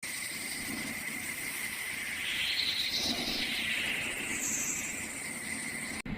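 Steady outdoor ambience with an insect-like high drone and hiss, swelling around the middle and cutting off abruptly near the end.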